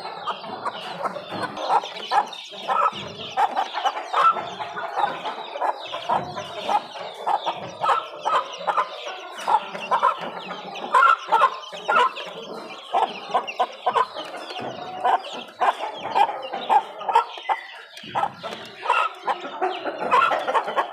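A group of young Aseel chickens clucking and calling continuously while feeding, a dense stream of short overlapping calls mixed with sharp clicks.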